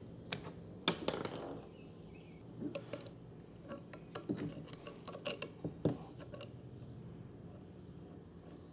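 Scattered light clicks and knocks of metal hydraulic fittings being handled and threaded by hand onto the port of a hydraulic top link cylinder, over a faint steady low hum.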